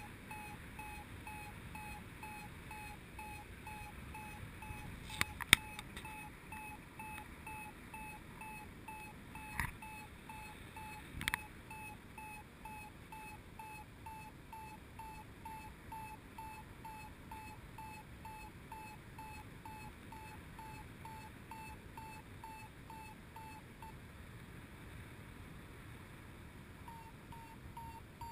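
A paragliding variometer beeping at a steady pitch, about two short beeps a second, the sign that the glider is climbing in lift; the beeping stops for a few seconds near the end, then starts again. Faint wind noise runs underneath, and a few sharp knocks come early on and again around the middle.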